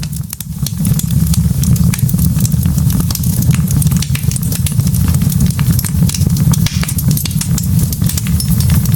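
Burning wood logs crackling in a fireplace: many irregular sharp pops and snaps over a steady low rumble.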